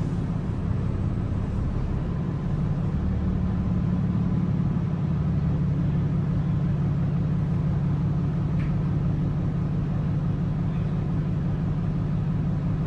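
Inside a 2022 Gillig hybrid bus under way: its Cummins B6.7 diesel and BAE hybrid drive running with a steady low rumble, a little louder from about two seconds in.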